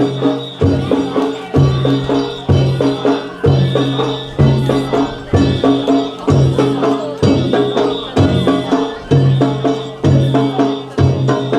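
Danjiri float's festival music (narimono): a large drum beaten in a steady beat about once a second, with quicker smaller strokes between and the ringing clang of hand gongs.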